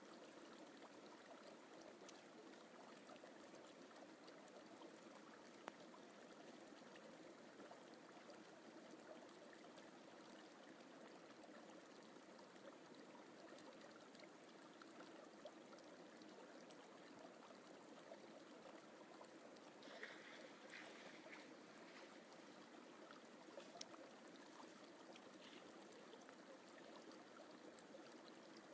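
Faint, steady rushing of a forest stream, with a couple of brief faint high sounds about two-thirds of the way through.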